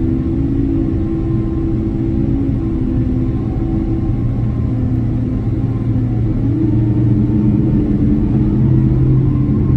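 Steady cabin rumble of a Boeing 767-300ER rolling on the ground just after landing, with the low drone of its engines. The drone's pitch shifts about six and a half seconds in.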